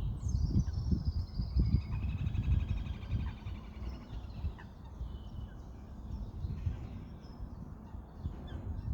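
Wild birds calling in a swamp, with high chirps and a fast trill about two seconds in, over a loud, steady low rumble. The calls fade somewhat after the middle.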